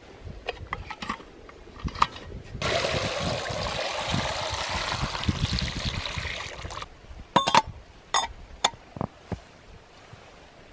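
Water poured from an aluminium milk can into a samovar, splashing steadily for about four seconds. Sharp metal clinks come before the pour and several ringing ones after it, as the samovar lid and the can are handled.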